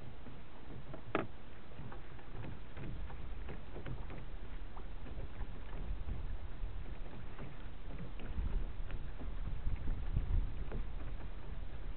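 Water lapping and splashing against the hull of a small Alcort Sunfish sailboat under way, with many small slaps and one sharp click about a second in. Wind rumbles on the microphone underneath and gusts harder about eight to ten seconds in.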